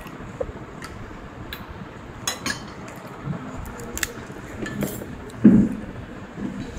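China bowls and a ceramic spoon clinking at a table, a scatter of short sharp clicks, with one louder, duller bump about five and a half seconds in.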